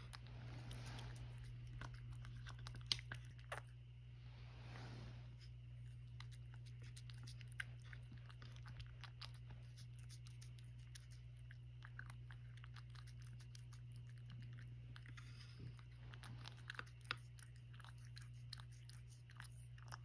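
Domestic cat eating food off a spoon: faint, irregular small clicks of licking and chewing throughout, over a steady low hum.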